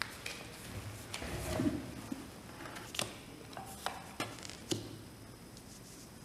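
Dixit picture cards being handled and laid face up on a table: a soft rustle, then several short light taps and flicks, mostly between about three and five seconds in.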